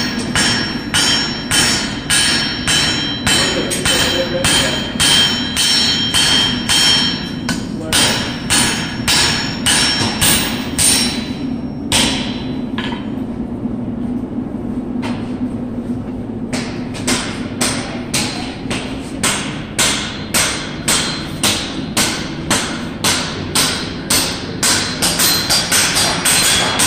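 Hand hammers striking hot steel pipe on anvils, about two blows a second, each with a ringing anvil tone. The blows thin out for a few seconds near the middle and then pick up again, over a steady low hum.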